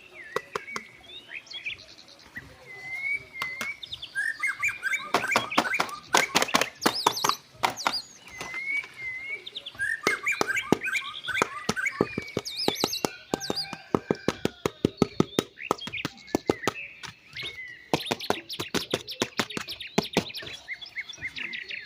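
Birds chirping and calling throughout, in short rising and falling chirps, mixed with many sharp clicks and taps.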